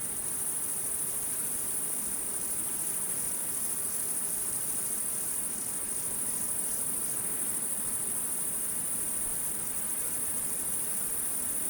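Crickets chirping in a steady, high-pitched trill that goes on without a break.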